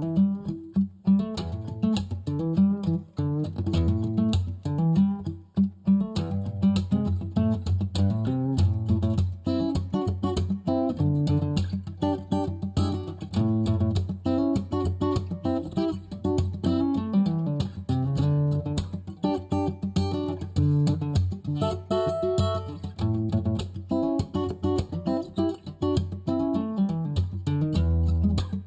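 Background music: a guitar-led track of plucked and strummed guitar over a steady beat.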